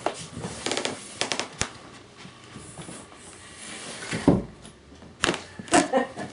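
A scatter of short sharp clicks and taps in quick clusters, with a heavier dull thump about four seconds in.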